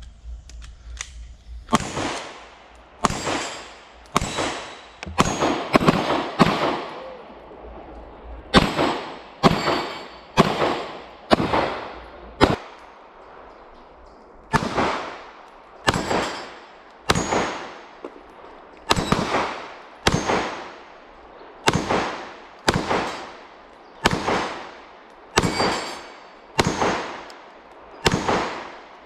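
A Glock 26 9mm pistol fired at a steady pace, roughly one shot a second, about two dozen shots in strings broken by two short pauses. Each shot trails off in a long echo.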